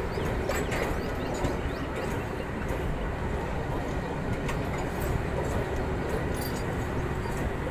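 Passenger coaches of the Millat Express rolling past close by: a steady rumble of steel wheels on the rails, with scattered short clicks.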